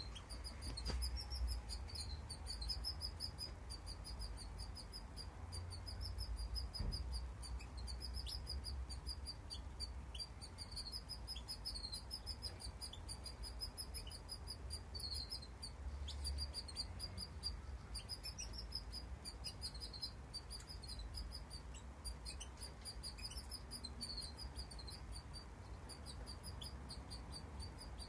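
Caged finches, a European goldfinch, a canary and their young, chirping in a near-continuous stream of high, rapid, wavering notes in runs of a second or two.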